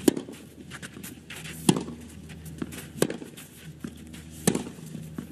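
Tennis rally on a clay court: rackets striking the ball in four sharp hits about a second and a half apart, with fainter knocks between them.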